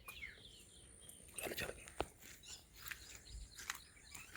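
Faint birds chirping in short calls, with a couple of sharp clicks about a second and a half and two seconds in.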